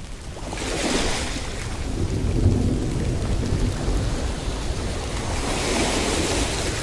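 Recorded storm ambience: a steady rush of rain-like noise over deep rolling thunder, building over the first second. The hiss swells about a second in and again near the end.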